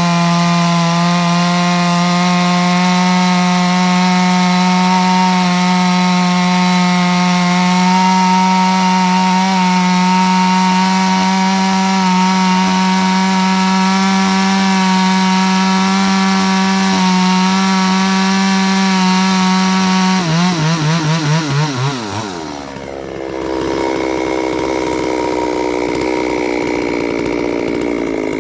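Chainsaw at full throttle cutting through a log on a chain sharpened to 55, 0 and 30 degrees, holding a steady high note for about twenty seconds. Near the end the pitch wavers and drops as the chain comes out of the cut and the throttle is released, and the saw settles to idle.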